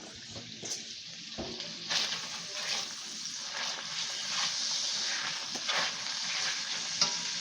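Bacon frying hot in a pan: a steady sizzle with small crackling pops, getting louder about two seconds in.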